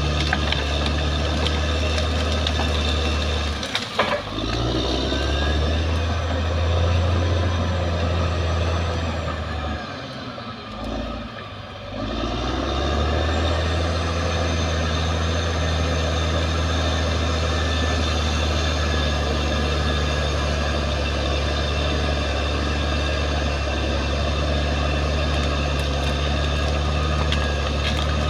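Caterpillar D6R XL crawler bulldozer's diesel engine running steadily under load, with a sharp clank about four seconds in; the engine note drops away for a couple of seconds around ten seconds in, then picks back up.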